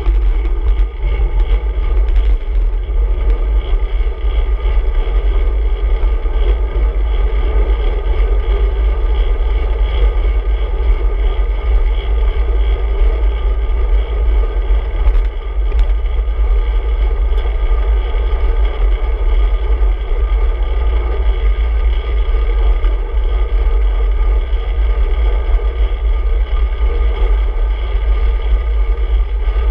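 Steady wind rumble buffeting the microphone of a handlebar-mounted action camera on a moving bicycle, loud and unbroken, with a constant hum through the middle pitches.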